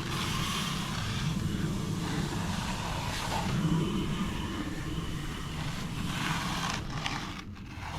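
A vehicle engine running steadily, a low rumble with a light hiss over it.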